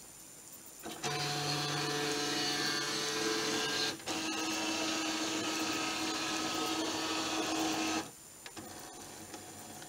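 HP all-in-one printer's flatbed scanner running a scan: the scan-head motor starts about a second in with a steady whirring hum, changes pitch after a brief break about four seconds in, and stops about eight seconds in.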